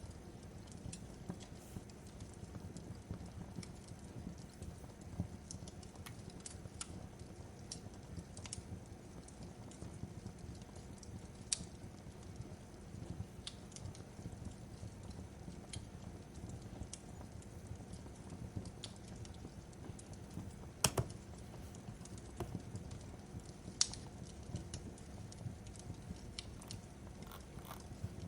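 Crackling fireplace: a steady low hiss and rumble of burning wood with irregular sharp pops and crackles, two louder pops in the last third.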